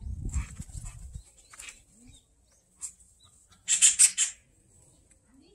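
Oriental magpies calling in short harsh chattering bursts, with a quick run of three loud ones about four seconds in. A low rumble in the first second.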